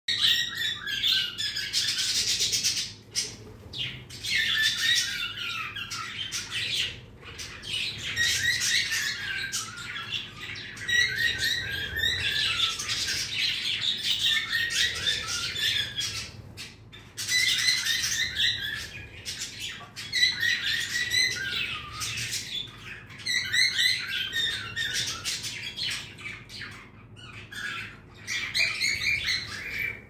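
A flock of pet budgerigars chattering together: a dense run of short, high chirps and warbles, with a few brief lulls.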